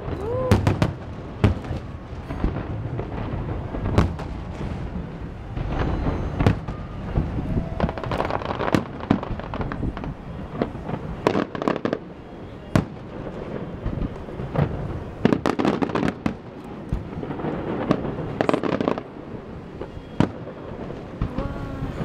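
Aerial firework shells bursting in a display: many sharp bangs at irregular intervals, some in quick clusters.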